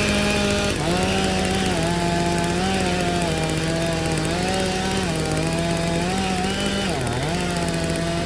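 Two-stroke chainsaw running at full throttle while felling a tree, its pitch wavering as it cuts, with a brief sharp dip in revs about seven seconds in before it picks back up.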